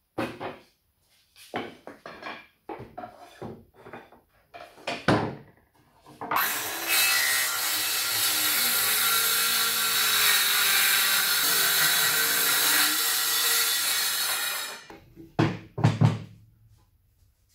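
A power saw cuts through wood for about eight seconds, starting roughly six seconds in, its pitch wavering as it cuts. Before it come scattered knocks and clatter of wood being handled, and a few more knocks follow after the cut.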